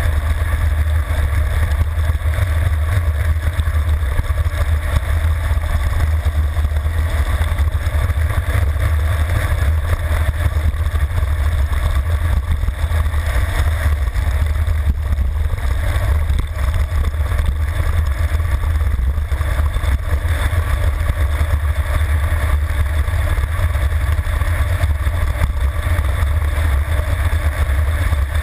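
Wind buffeting the microphone of a camera on a road bike descending at high speed: a loud, steady low rumble that does not let up.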